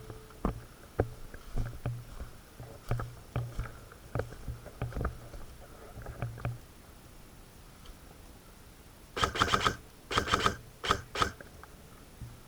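A run of sharp, separate clicks and knocks at uneven intervals, then a pause, then three short clusters of rapid clicking about nine to eleven seconds in.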